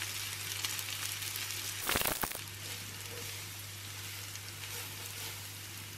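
Butter sizzling in a hot cast-iron skillet, with onions frying in a second pan: a steady sizzle with one brief, louder burst about two seconds in as the butter goes in.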